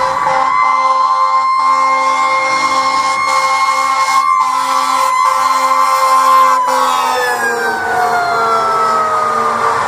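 Fire engine's siren held at a steady high pitch, then sliding steadily down in pitch from about seven seconds in as the engine passes close by.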